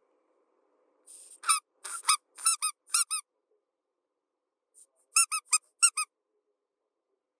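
A run of short, high-pitched squeaks, about eight in quick succession, then a pause and about six more.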